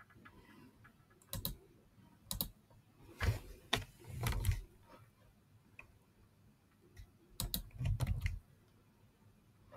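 Computer keyboard key presses and mouse clicks in several short clusters, with quiet pauses between them.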